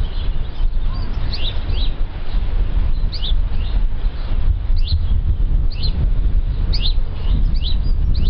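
A songbird calls with short, high, falling chirps about once a second, over a loud, steady low rumble.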